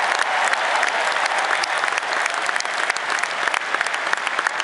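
Large stadium crowd applauding: a dense, steady clatter of many hands, with sharper individual claps standing out.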